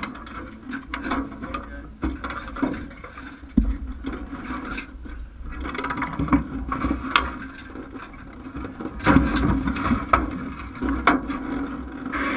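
Irregular sharp clicks and knocks, some metallic, scattered over a low rumble, with a cluster of louder knocks a few seconds before the end.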